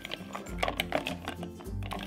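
Plastic toy vegetable pieces clicking and clattering against each other and the plastic toy pot as they are stirred, over background music.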